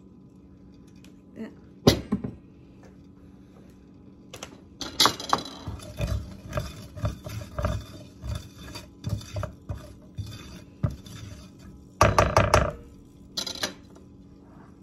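A spatula scraping and tapping around the bottom of a large stainless steel pan, spreading oil: a single clink about two seconds in, then a run of quick scrapes and knocks. Near the end come a few louder clatters of utensil on metal.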